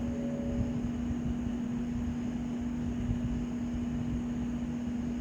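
Steady background hum and hiss from running machinery, with one constant low tone and no change.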